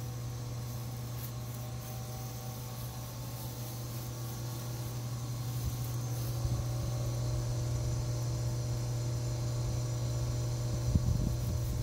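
A steady low mechanical hum, like a motor running, with a few short knocks near the end.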